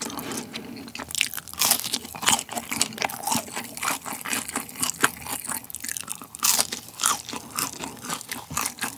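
Close-miked crunching and chewing of McDonald's Chicken McNuggets, with many irregular crackles from the fried coating.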